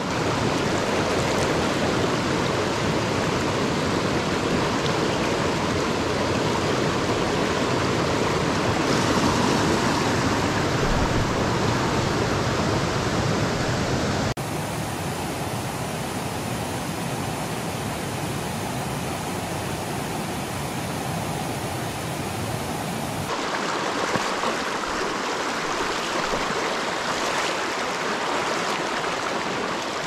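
Rushing mountain stream: water running over rocks in riffles and small cascades, a loud, steady rush. It shifts abruptly in tone twice, about fourteen and twenty-three seconds in.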